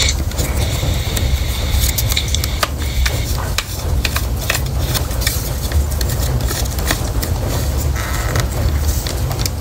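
Handling noise of a plastic smoke and carbon monoxide alarm being pried at to get its sealed battery out: scattered clicks and scrapes over a steady low rumble.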